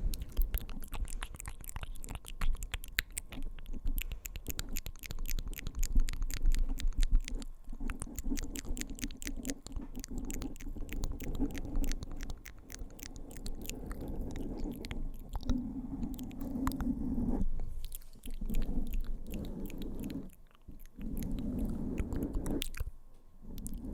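Close-miked ASMR mouth sounds: rapid wet clicks and smacks, with stretches of low, muffled rumble.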